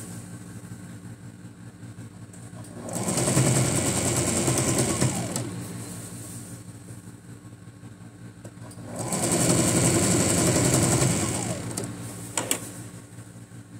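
Electric domestic sewing machine stitching fabric, running fast in two spells of a couple of seconds each, about three seconds in and again about nine seconds in, with quieter running between. A single sharp click comes near the end.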